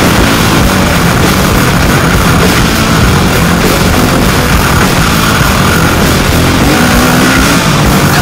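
Loud rock music with a dense, steady sound and no breaks.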